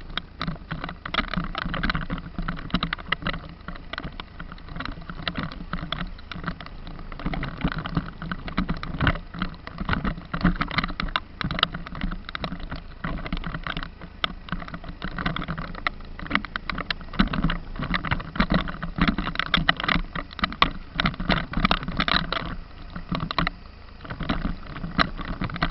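A vehicle driving over a rough forest dirt road: a steady low rumble with frequent irregular knocks and rattles.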